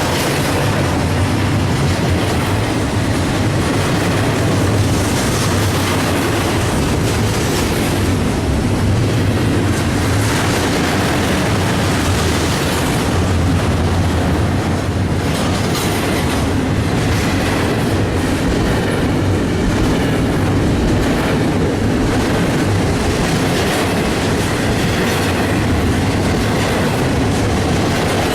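Double-stack container freight train rolling past, a steady rumble of the cars with the wheels clacking over the rail joints.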